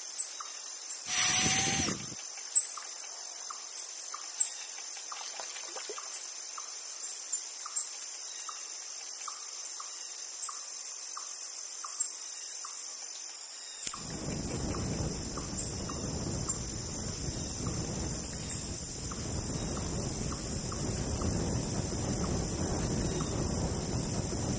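Steady high-pitched insect chorus of crickets, with faint regular chirps about twice a second. A brief loud noise comes near the start, and about halfway through a low rushing noise joins and continues under the insects.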